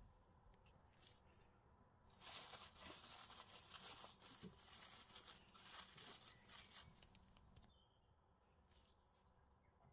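Plastic cling film crinkling and crackling as it is pulled and stretched over a glass dish, starting about two seconds in and lasting about five seconds.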